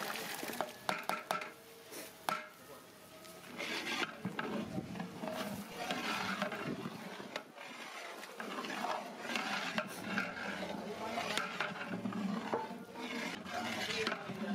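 Long-handled metal ladle stirring thick mutton gravy in a large aluminium pot, scraping and sloshing as green chilli paste is worked in, with a few sharp clicks of metal against the pot near the start.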